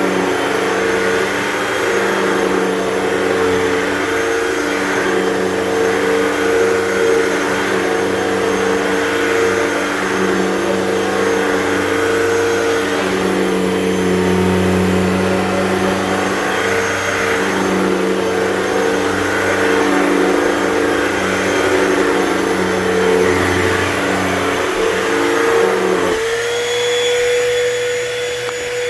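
Hoover Total Home Pet upright vacuum running on thick carpet with a steady motor tone under a lower rumble that swells and eases as it is pushed back and forth. Near the end the lower rumble drops away and the motor note steps slightly higher.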